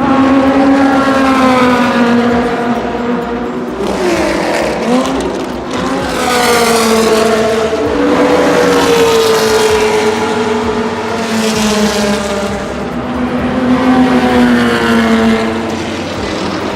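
Historic racing cars' engines running at high revs as several cars pass, their engine notes rising and falling and overlapping.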